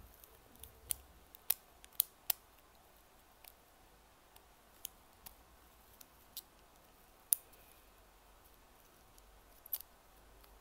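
Scattered sharp plastic clicks from handling and fitting together the small parts of a dog light and its packaging, about a dozen in all, loudest around two seconds in and again past seven seconds.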